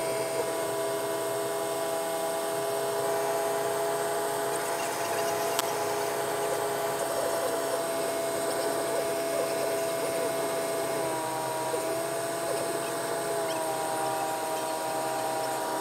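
Idro-Storch ultralight seaplane's propeller engine running steadily in cruise, heard from inside the cockpit as an even, high drone; its pitch shifts slightly about eleven seconds in.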